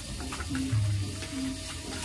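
Background music with a short low note repeating about twice a second, over the soft wet squelching of hands mixing spice-coated chicken skin in a steel bowl.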